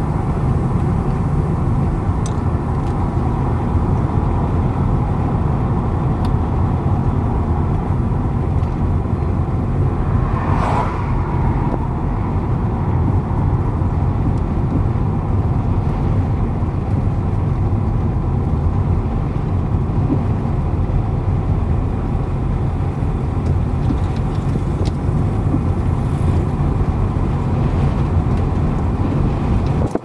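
Car driving on a tarred road, heard from inside the cabin: steady engine and tyre noise, with one brief louder noise about ten seconds in.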